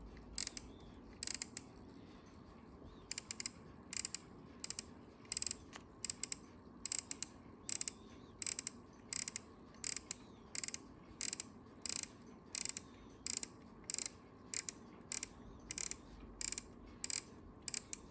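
Copal RD-700 flip clock's number cards flipping over one after another: a short clicking flutter about every 0.7 seconds, steady and regular.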